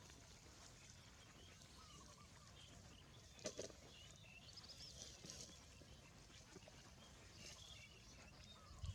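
Faint outdoor ambience: a low steady background noise with small birds chirping faintly and scattered throughout, and one sharp click about three and a half seconds in.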